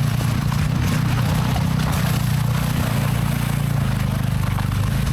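Vehicle engine running steadily, a low, even drone.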